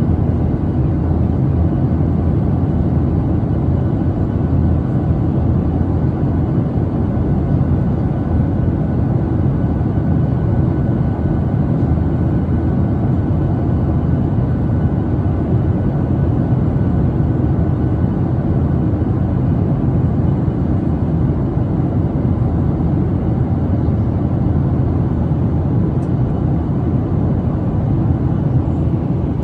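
Steady, loud low rumble of a vehicle in motion, running evenly without a break.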